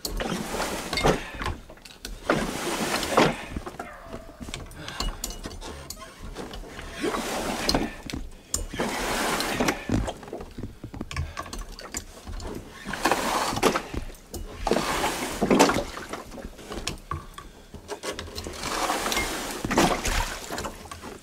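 Water sloshing and splashing in a noisy burst every two to three seconds, with a few sharp knocks, as a small boat is pushed and paddled through shallow water.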